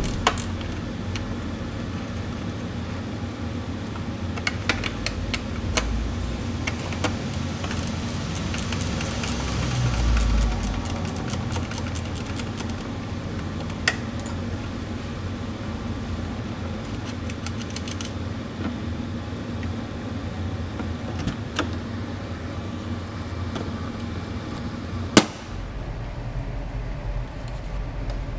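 Toyota MR2 plastic side vent panel being worked off the body by hand: scattered clicks and rattles of the panel and its retaining clips, with one sharp snap a few seconds before the end as it comes free. A steady low hum runs underneath.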